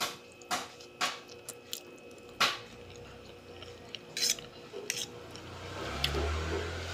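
Close-up eating of carbonara pasta: chewing with scattered sharp, wet mouth clicks and smacks, and a metal fork clinking against the plate. A low hum comes in near the end.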